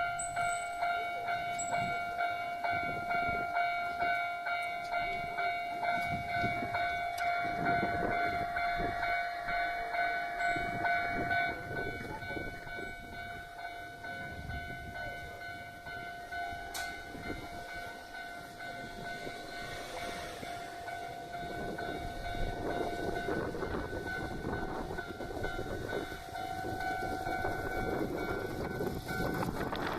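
Level-crossing warning bells ringing in a steady repeating pattern, about two strokes a second, over the rumble of a train running on the rails; the bells stop near the end.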